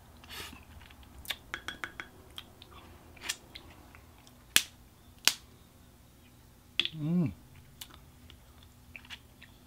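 Close-up eating sounds: wet lip smacks and sharp sucking clicks from licking seasoning off fingers, scattered irregularly, with the two loudest about halfway through. A short falling hum of approval ("mm") about seven seconds in.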